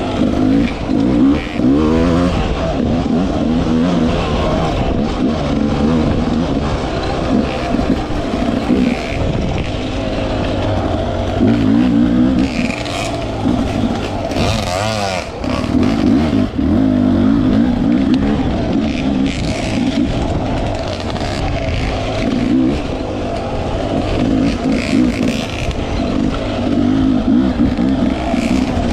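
Off-road dirt bike engine revving up and down over and over as it is ridden on a trail.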